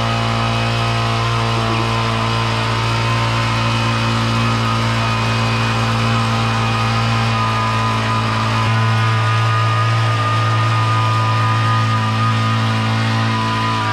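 Small gas engine of a vibrating power screed running at a steady speed as the screed is drawn across freshly poured concrete. The deepest part of its sound drops away about nine seconds in.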